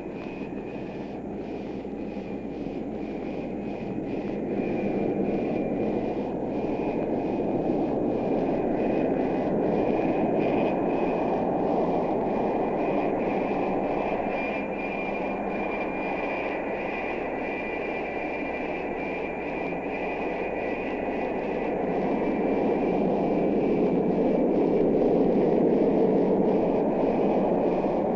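Aircraft engines running: a steady roar with a thin high whine over it, growing louder about four seconds in and again near the end.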